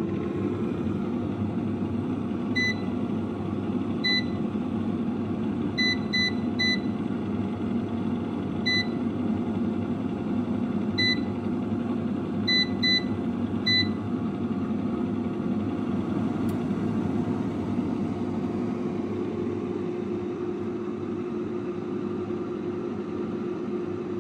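Cosori air fryer running, its fan giving a steady whir with a hum. About ten short, high touch-panel beeps sound as its buttons are pressed, most of them in the first half, some in quick pairs.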